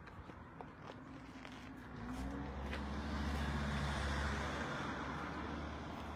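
A motor vehicle passing close by: engine hum and tyre noise come up about two seconds in, peak, then fade away.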